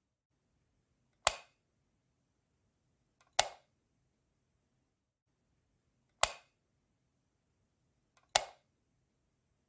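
A light switch clicking four times, one sharp snap every two to three seconds, two of them with a faint softer click just before.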